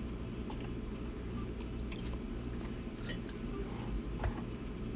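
Scattered light clicks and taps of small tools and parts being handled during a laptop repair, over a steady low hum; one slightly louder knock comes a little after four seconds in.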